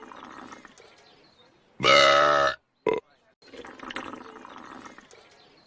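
A cartoon woman's belch, repeated on a loop: a quieter rough, noisy stretch, then a loud pitched belch of under a second about two seconds in, a short blip just after it, and the rough stretch again.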